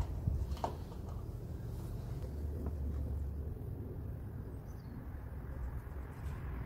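Wind rumbling on the microphone, with two light clicks in the first second.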